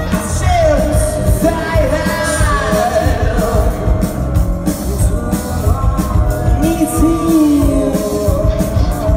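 Live rock band playing, with a man singing the lead over acoustic and electric guitars and drums, loud and echoing as heard from the crowd.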